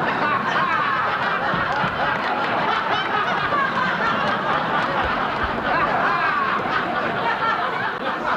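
Sitcom studio audience laughing, a dense crowd laugh that holds steady for the whole stretch.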